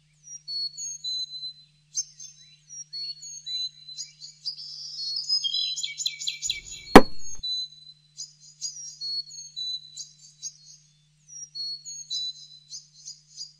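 Small birds chirping and twittering in quick, high, falling notes, with one sharp knock about seven seconds in.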